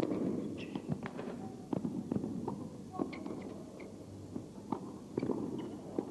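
Tennis rally: sharp pops of racquets striking the ball and the ball bouncing, about once a second, over a low crowd murmur.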